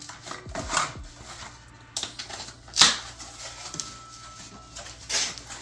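Cardboard cat-food tray being worked by hand: rustling and creasing, with a few sharp crackles and pops as its folded tabs are pushed out, the loudest about three seconds in.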